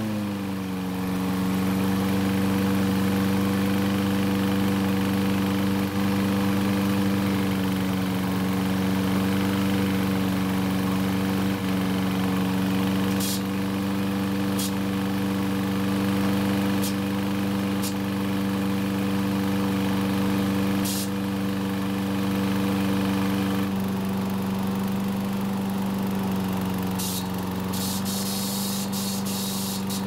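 Troy-Bilt self-propelled mower's small single-cylinder engine running steadily just after starting. A noise comes from the top of the engine, which the owner guesses is a faulty recoil starter or starter pawls. A few sharp clicks sound in the second half.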